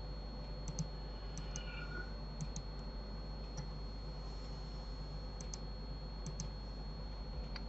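Computer mouse buttons clicking a dozen or so times, mostly in quick pairs, over a steady faint electrical hum.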